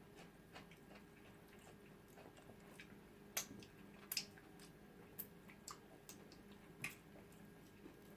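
Faint mouth sounds of eating: a handful of soft, wet clicks and smacks of chewing, spread over several seconds, with a low steady hum beneath.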